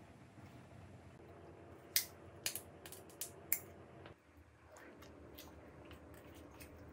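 Close-miked candy eating: faint mouth sounds broken by about five sharp bite clicks between two and three and a half seconds in.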